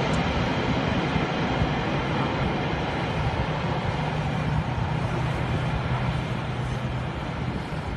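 Steady drone of Canadair amphibious water bombers' turboprop engines as they skim the sea scooping water, over a steady rushing noise.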